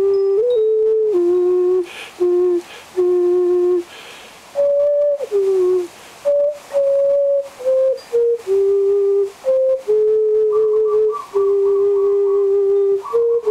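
Terracotta vessel flute played: a slow melody of clear, almost pure notes stepping up and down, with short breath pauses around two to four seconds in.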